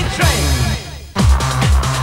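Techno-style electronic dance music on a steady kick-drum beat. The beat drops out for a moment of falling sweeps and comes back in just after a second in.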